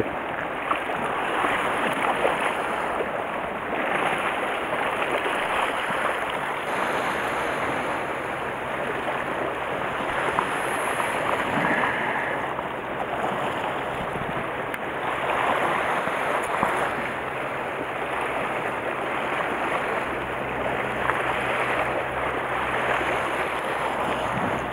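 Sea waves washing and splashing against a rocky shoreline, a steady wash that swells and eases every few seconds.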